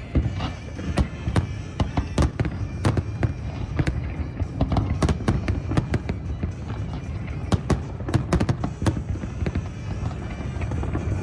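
Fireworks show: rapid, irregular bangs and crackles of bursting shells over a continuous low rumble, with music playing underneath.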